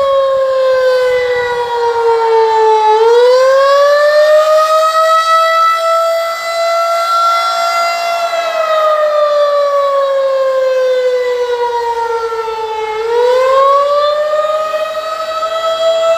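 Federal Signal 2001-SRN/DC electromechanical outdoor warning siren sounding the Attack signal: a loud wail whose pitch falls, climbs back up about three seconds in, holds high for a few seconds, slides down again and climbs once more near the end.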